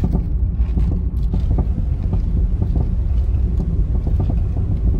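Repeated clunks from a 2017 Toyota 86's coilover suspension as the car is driven slowly and steered, heard inside the cabin over the low rumble of the engine and tyres. The clunks come at uneven intervals. The owner traces the fault to the coilovers' inverted monotube struts binding.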